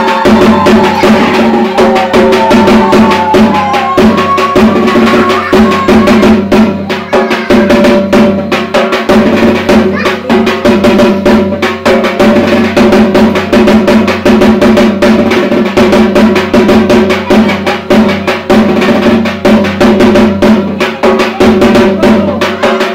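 Drums played fast and loud over a steady held tone, music for the evening puja ritual.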